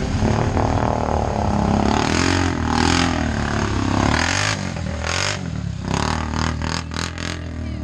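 Mud-tire ATV engine revving up and down as it churns through deep mud, with several short splashing bursts near the middle and a quick run of them near the end.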